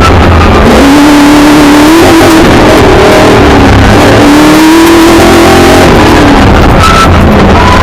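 Milner R5 racing car's 5-litre V8 heard from inside the car, very loud, its revs climbing, dropping back and climbing again several times.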